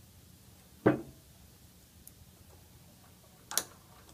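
Snap ring pliers and a steel snap ring clicking against the inside of a metal pneumatic actuator sleeve as the ring is fitted into its groove: a dull knock about a second in and a sharp click about three and a half seconds in.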